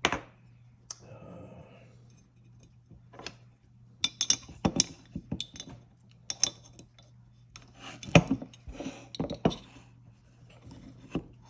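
Small metal tools and parts clicking and tapping against an AR-15 lower receiver while the bolt catch roll pin is being started. The sharp clicks come scattered, with two busy clusters about four and eight seconds in.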